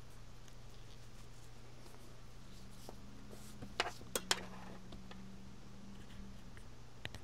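Faint steady low hum with a few sharp light clicks of small hard objects being handled or set down, three or four close together about four seconds in and a couple more near the end.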